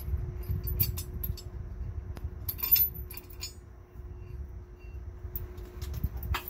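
Light metallic clinks and ticks of a bolt, nut and washer being handled and fitted against a steel trac bar bracket on an axle housing, loudest in a cluster midway, over a faint steady hum.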